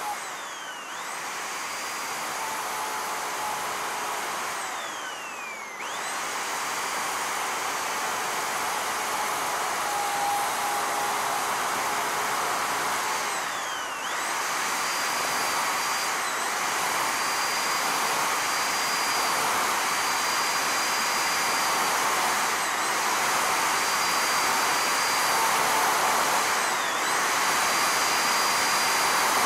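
Chainsaw running at high speed as it carves into a wooden post. Every few seconds its pitch falls and the level dips briefly, then it comes back up to speed.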